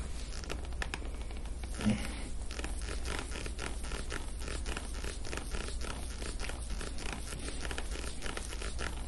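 Hands pressing and sliding over bare skin during soft-tissue work on the upper back, a rapid dry scratchy crackle, like a zipper, a few times a second. A dull bump about two seconds in, over a steady low hum.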